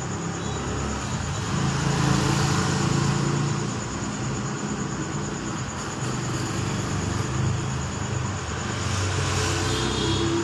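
A low engine rumble with a droning hum, swelling about two seconds in and again near the end.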